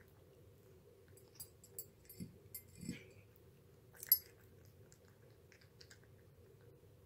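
A cat eating from a shallow dish: quiet chewing with scattered small clicks and a couple of soft thumps, and one sharper click about four seconds in.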